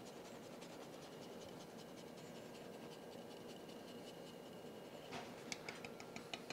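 Parmesan cheese being grated on a fine rasp grater: faint, quick scratching strokes, with a few louder ticks near the end.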